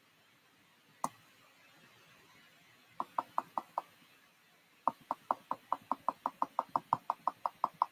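Computer mouse button clicking. One click comes about a second in, then four quick clicks about three seconds in, then a steady run of rapid clicks, about five or six a second, from about five seconds in.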